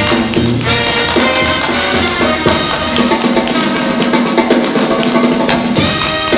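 Brass band music with a drum kit and trumpets, with tap shoes striking the stage floor in quick rhythms over it.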